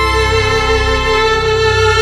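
Background music: one long held note over a low, steady accompaniment.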